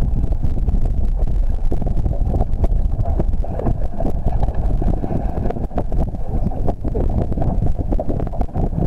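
Wind buffeting the microphone on an open boat at sea: a steady, loud low rumble with constant flutter.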